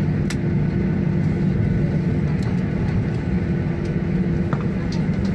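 Cabin noise of a Boeing 737-800 rolling out on the runway just after landing: a steady deep rumble from the engines and wheels, with a constant low hum running through it.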